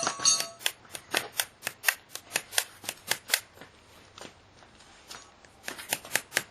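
Sharp metal clicks and taps, about two to three a second, with a brief metallic ring right at the start. This is the wheel's retaining ring being worked to make its hole smaller, so that it grips the axle tightly enough to hold the wheel on.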